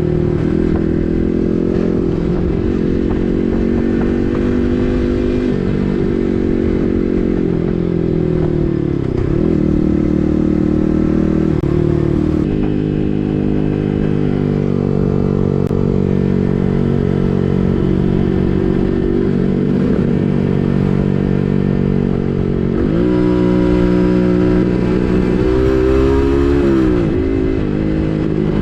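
Yamaha MT15's single-cylinder engine running through an SC Project full-system exhaust while ridden, mostly at a steady pitch. The pitch drops and climbs back a few times, most of them in the last third.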